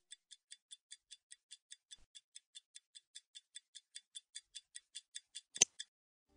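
Stopwatch ticking sound effect: rapid, even, high-pitched ticks, about five a second. About five and a half seconds in comes one louder click, and the ticking stops, as a stopwatch is stopped.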